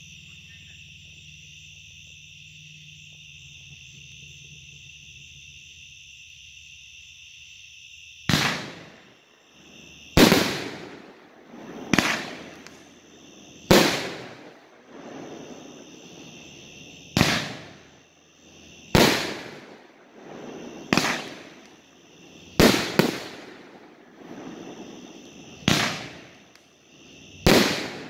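Steady high chirring of night insects, then from about eight seconds in a 500-gram consumer firework cake ('Shaman', Smoking Alien Fireworks) firing: about ten loud shell bursts, one roughly every two seconds, each bang trailing off in echo.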